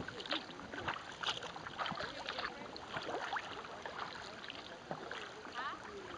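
Sea kayak paddling: paddle blades dipping and splashing irregularly, with water dripping and lapping against the hull.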